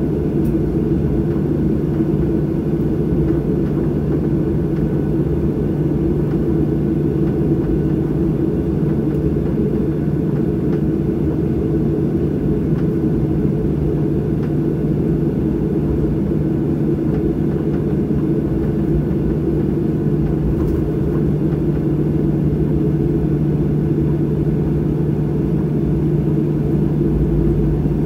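Boeing 737 jet engines at low thrust as the airliner taxis after landing, heard inside the cabin: a steady low drone with a constant hum running through it.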